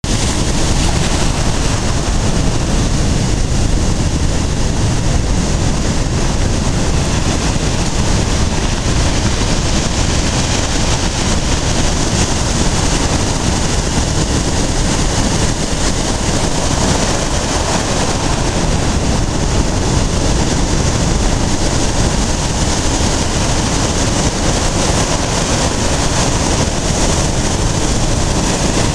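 Very rough sea in a storm surge: waves breaking and foaming up a sand beach, a loud steady roar with a deep rumble underneath.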